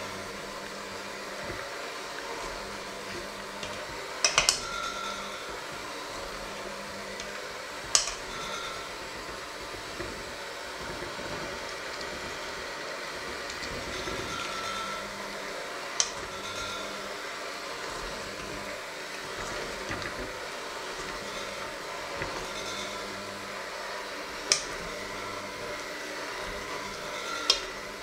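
Electric hand mixer running steadily, its beaters working a thick mixture in a stainless steel bowl, with about five sharp metallic knocks as the beaters hit the side of the bowl.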